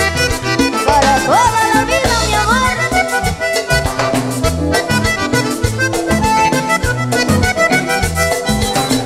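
Live Latin band in an instrumental break: a button accordion plays the lead over bass, congas and drum kit with a steady beat.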